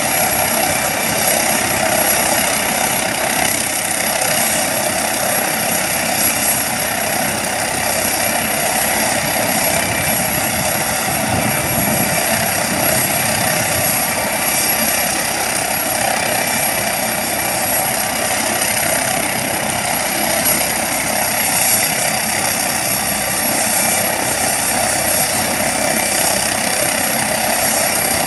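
Police MD 902 Explorer NOTAR helicopter running on the ground, a steady turbine and rotor noise with a thin high whine over it.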